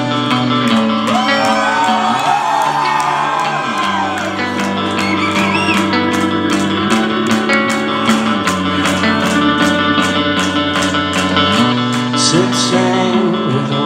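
Live rock band playing an instrumental passage: electric guitars over a bass line that steps between long held notes, with drums keeping a steady cymbal beat.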